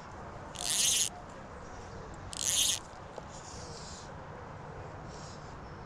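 Two short hissing swishes of a fly line moving through the air as the fly rod is cast, about a second and a half apart.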